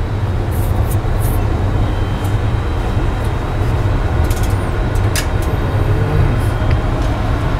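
Steady rumble and air rush of air-conditioning air handlers running, with a few light clicks from handling on the bench.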